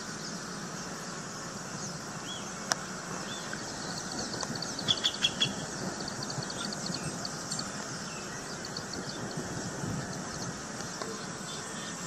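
Woodland ambience: a steady hiss of background noise with small birds chirping faintly and often, a short flurry of higher calls about five seconds in, and a single sharp click a little before.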